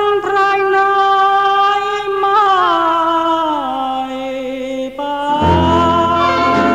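Thai luk thung song: a male voice holds long, drawn-out notes of the closing line, sliding slowly down in pitch, over a sparse accompaniment. About five seconds in, the full backing band comes in with bass and drums.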